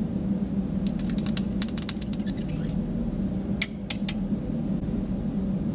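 Quick light ticking of glass: copper sulfate crystals tapped from a spatula into a glass test tube. A little past halfway come a couple of sharper glass clinks as the tube is set back on the balance pan, over a steady low hum.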